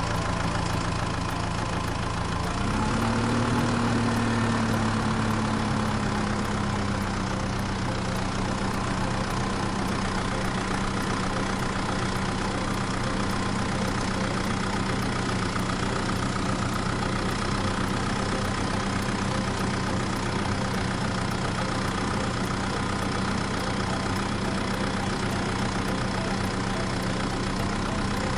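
An engine runs steadily at idle as a low, even hum. About two and a half seconds in it picks up a little, then settles back to a steady idle.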